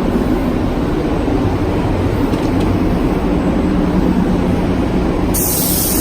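Steady low drone of spray-booth or workshop fan machinery with a constant hum. About five seconds in, a loud, steady compressed-air hiss starts over it.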